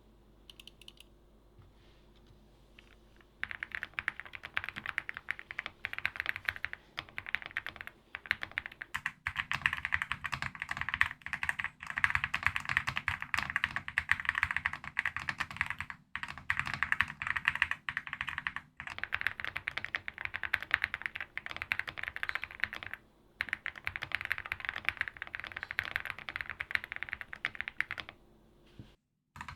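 Fast, continuous typing on a custom mechanical keyboard: a dense stream of keystroke clacks, broken by a few short pauses. The first few seconds are quiet before the typing starts.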